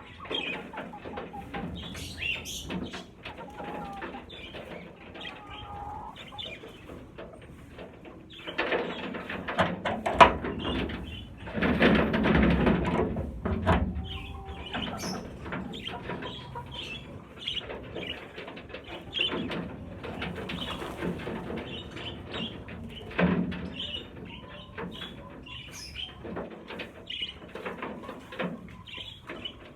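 A flock of budgerigars chirping and chattering with wings flapping, and a louder flurry of flapping and scuffling between about nine and fourteen seconds in.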